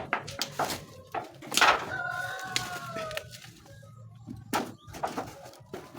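A rooster crowing once, a drawn-out call that starts about two seconds in and sags slightly in pitch as it ends, among scattered knocks and clatter.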